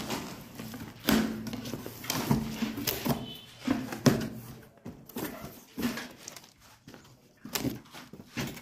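Cardboard box and packaging being opened and handled: irregular rustles, scrapes and knocks of cardboard flaps and contents being moved.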